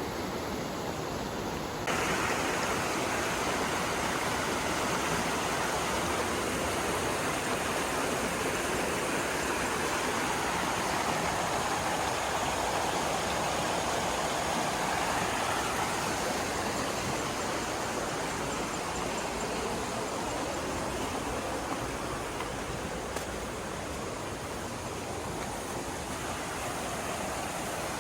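Steady rushing water, as of a stream or waterfall, growing louder about two seconds in.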